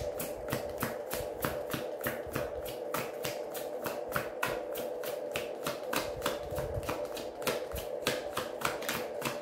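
Tarot deck being shuffled by hand: a quick, even run of soft card slaps, about four or five a second.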